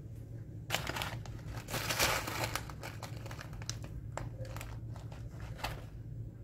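A paper packet crinkling and rustling in the hand as a spoon scoops from it, with a few sharp clicks in the second half.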